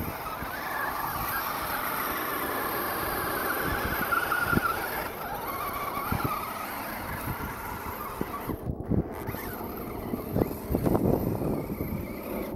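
Brushless electric motor of a custom Axial Wraith RC buggy whining as it drives through snow, the pitch rising and falling with the throttle, with scattered thumps and knocks from the chassis and tyres, the loudest about four seconds in and again near the end.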